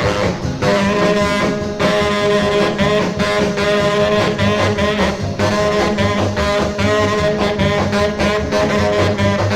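Instrumental break of a 1950s rhythm and blues jump record: a saxophone with brass riffing over a walking bass and a steady beat.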